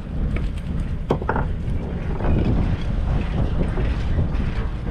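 Fishing boat at sea: a steady low rumble of the boat with wind buffeting the microphone, and a few knocks about a second in.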